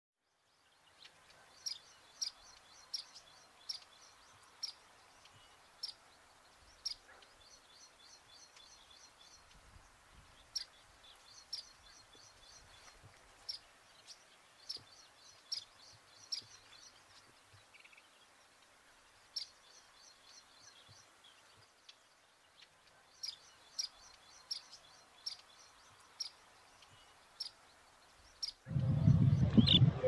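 Indian silverbills (white-throated munias) calling with short, high chirps, some single and some in quick runs, at irregular intervals. Near the end a much louder low noise cuts in suddenly.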